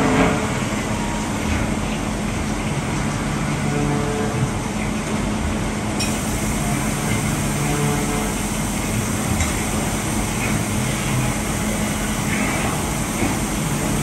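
Gildemeister Sprint CNC lathe running a cutting cycle under flood coolant: a steady hiss of coolant spray over a constant low machine hum, with short low whines that come and go every couple of seconds and a sharp click about six seconds in.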